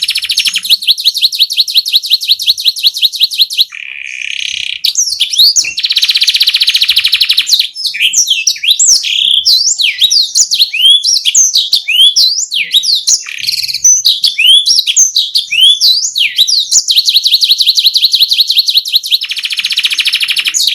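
Domestic canary singing, loud and continuous. Long, very fast rolling trills alternate with runs of quick sweeping chirps; the chirps fill the middle and a trill returns near the end.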